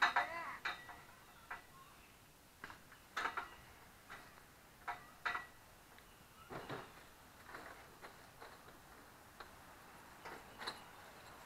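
Scattered light clicks and knocks at irregular intervals, some with a short metallic ring, from the metal frame of a backyard play tower being handled during assembly.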